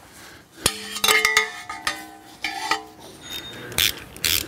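Metal hand tools clinking against the exhaust header hardware: sharp clicks and knocks, with metal ringing on for a second or two after a strike, then a few quick scraping strokes near the end.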